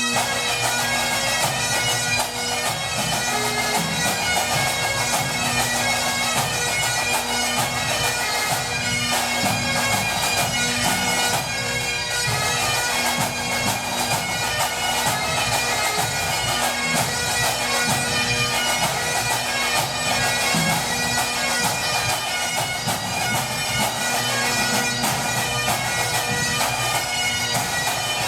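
Great Highland bagpipes playing a tune over a steady drone.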